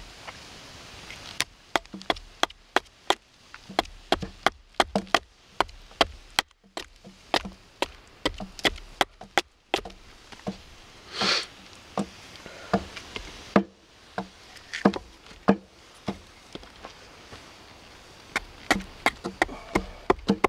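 Hatchet chopping into a wooden spoon blank held upright on a stump chopping block: a run of sharp knocks at uneven intervals, about two or three a second, with brief pauses. There is a short rasping hiss about eleven seconds in.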